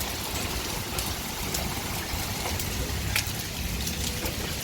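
Heavy rain pouring down steadily, with a few sharp ticks scattered through it.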